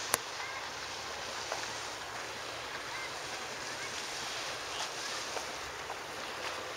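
Steady outdoor noise of wind on the microphone, with a sharp click just after the start and a few faint high chirps.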